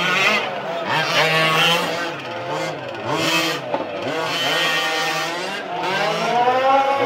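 Several 1:5-scale RC race cars' small engines revving up and down, their whines overlapping and rising and falling as the cars brake and accelerate around the circuit.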